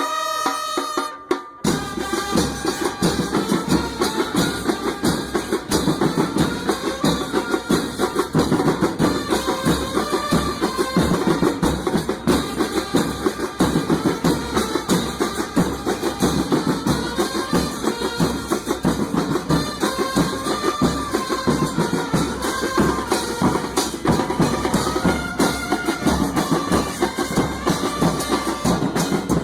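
Music with a drum kit keeping a steady, busy beat under a melody line. It cuts out briefly about a second and a half in, then starts again.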